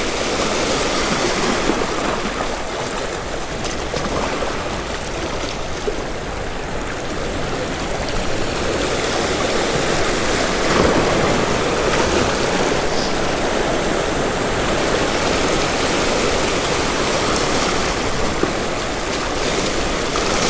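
Sea water surging and splashing around rocks at the waterline, a steady rush of waves that swells a little about halfway through.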